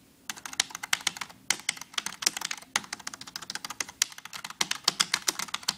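Fast typing on a cheap generic tenkeyless USB keyboard (Generic W9828), a dense run of plastic key clicks as the keys bottom out. It starts a moment in, with a brief pause about four seconds in.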